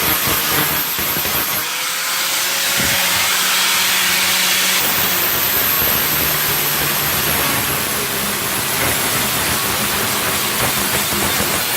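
Steady, loud hissing noise of metal bodywork tools on a car's hatch panel, with a faint high whine that falls away about five seconds in.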